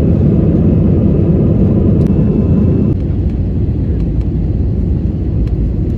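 Passenger jet airliner cabin noise in flight: a loud, steady low rumble of turbofan engines and airflow heard through the cabin wall by the window seat. It drops slightly in level about three seconds in.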